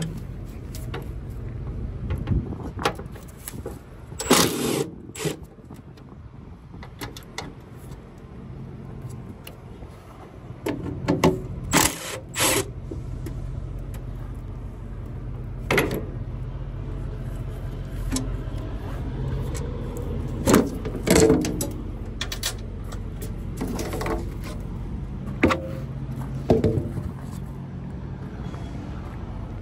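An engine running steadily with a low hum, broken by a dozen or so short, sharp knocks and clatters, some in quick pairs.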